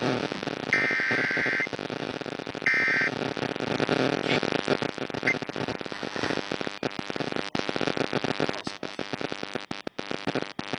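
EAS digital data bursts: two harsh buzzing bursts of the SAME alert code, one about a second long and a shorter one, the end of a three-burst set. After them comes a rough, noisy radio hiss that drops out briefly a few times near the end.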